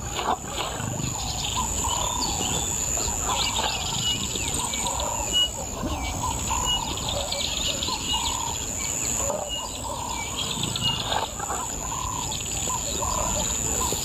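Wild birds calling and chirping, with many short high notes and lower, repeated curved calls, over a steady low background rumble.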